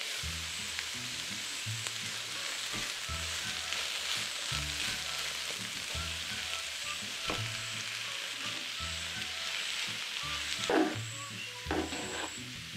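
Diced vegetables sizzling in oil in a frying pan as a metal spatula stirs and turns them, with a couple of louder scrapes of the spatula against the pan near the end.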